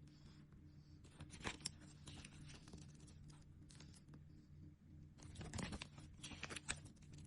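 Faint crinkling, rustling and small clicks of nail-sticker packets and sheets being handled, busiest a little past the middle, over a steady low hum.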